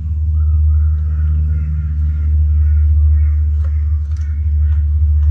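A steady low rumble runs throughout, under a few light clicks of hand tools working on the motorcycle's footpeg mounting plate, with faint bird calls in the background.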